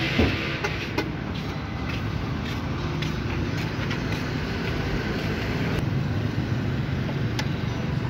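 A motor running steadily, with a few sharp metal clicks.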